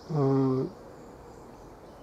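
A man's drawn-out hesitation sound, "ehh", held at one pitch for about half a second. After it comes a faint, steady high insect buzz that fades away.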